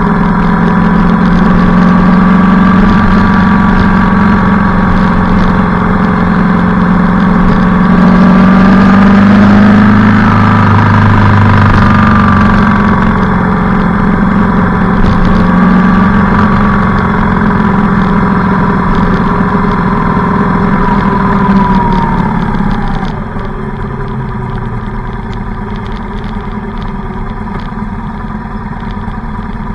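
Motorcycle engine running while riding, heard from on board the bike, its note rising and falling gently with the throttle over a rush of air noise. About 23 seconds in the engine note drops and the whole sound quietens as the throttle eases off.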